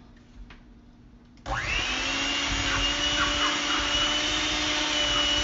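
Electric hand mixer switched on about a second and a half in, its motor whine rising briefly as it spins up and then running steady, the beaters churning creamed butter, sugar and eggs in a metal bowl.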